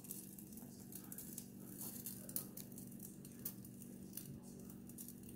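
Pot of water heating on a glowing radiant electric burner: faint, irregular crackling and ticking as it comes toward a simmer, over a steady low hum, with a couple of sharper clicks in the middle.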